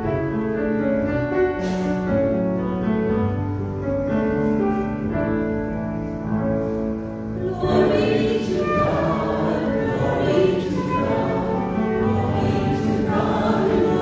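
Church hymn: an instrumental accompaniment plays sustained chords alone, and a choir comes in singing about halfway through.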